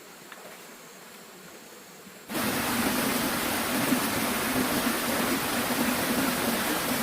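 Steady rushing of flowing river water that comes in abruptly about two seconds in, after a faint hiss.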